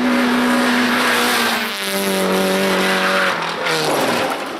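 Rally car engine running hard at high revs. Its pitch steps down about two seconds in, then drops again and falls away near the end, over a rushing noise of tyres on the stage.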